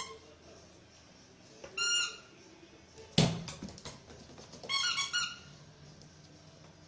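A squeaky rubber toy ball squeezed in a small dog's bite, giving short high squeaks: one at the start, one about two seconds in, and a quick double squeak near five seconds. A single thump a little after three seconds is the loudest sound.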